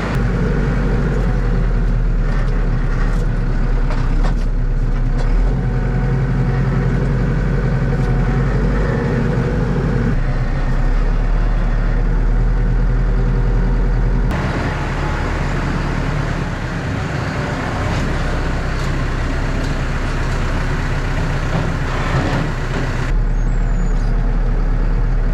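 Tractor engine running steadily while working in the shed. Its note shifts abruptly about fourteen seconds in and again near the end.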